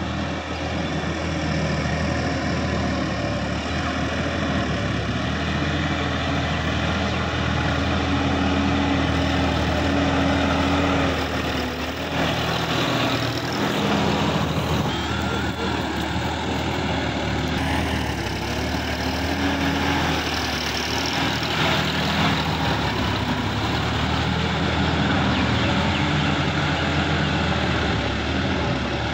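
Sonalika DI-50 RX tractor's diesel engine running steadily under load, driving a rear-mounted rotary tiller through wet paddy-field mud. The engine note changes briefly about twelve seconds in.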